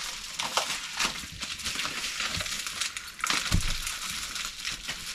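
Packing material crinkling and crackling as items are wrapped by hand, with a dull thump about three and a half seconds in.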